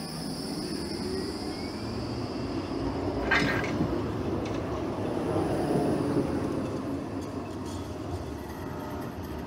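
Tram running past on its rails, the rumble swelling to its loudest a few seconds in and then fading, with one sharp clank about three seconds in.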